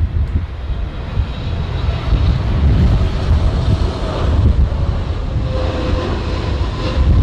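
Jet airliner engines on landing approach, with a steady engine whine coming up in the second half of the clip, under a heavy low rumble of strong wind buffeting the microphone.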